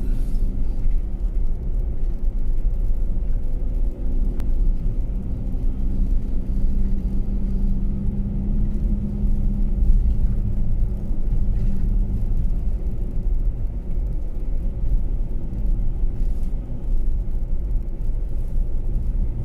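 A vehicle's engine and road noise heard from inside while driving: a steady low rumble with an even hum, no sudden events.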